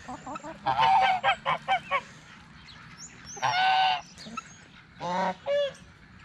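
Domestic geese honking: a quick run of short honks, then one longer honk, then two more near the end.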